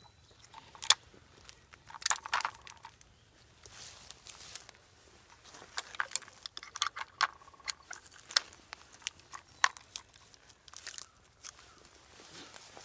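Gloved hands strapping a trail camera to a tree trunk: rustling of clothing and strap with irregular sharp clicks and scrapes.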